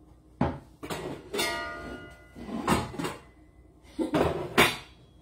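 Stainless steel pots knocking and clanking together as one is pulled out of a lower kitchen cabinet: a string of sharp knocks, one about a second and a half in leaving a brief metallic ring.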